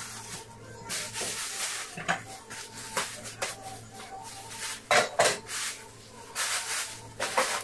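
Kitchen items being moved about and put away: several sharp knocks and clatters, with rustling in between.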